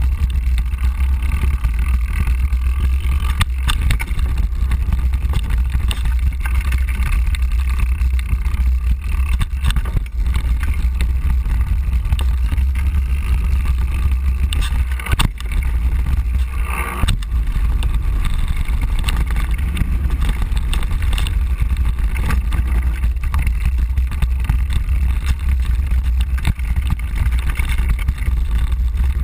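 Riding noise picked up by a GoPro HD Hero on a mountain bike descending a gravel forest trail: a steady, loud low rumble of wind buffeting and tyres rolling over the trail, with several sharp knocks as the bike hits bumps.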